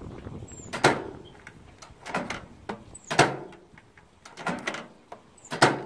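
Kenwood microwave door being popped open with its push-button release and shut again. Three loud plastic clacks come about two and a half seconds apart, with lighter clicks between them. It is the mended door release latching and unlatching as it should.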